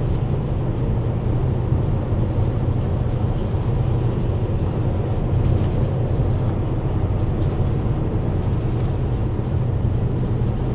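Steady road and engine noise inside a vehicle's cabin while cruising on a freeway: an even low hum with a broad rush above it.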